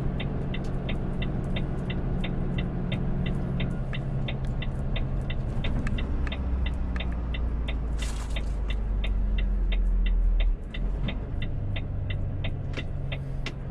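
Volvo truck cab: the diesel engine runs with a low rumble while a turn-signal indicator ticks steadily, about three ticks a second. The engine grows louder about six seconds in and drops off suddenly a few seconds later, and there is a short hiss about eight seconds in.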